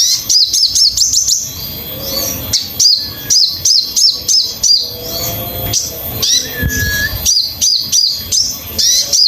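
Sogon songbird singing: repeated bursts of rapid, sharp, high down-slurred chirps. One short steady whistle comes about two-thirds of the way through.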